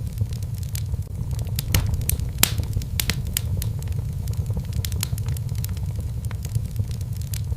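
Wood fire crackling in a fireplace: irregular sharp pops, a couple a second, over a steady low rumble of the flames, with one louder pop about two and a half seconds in.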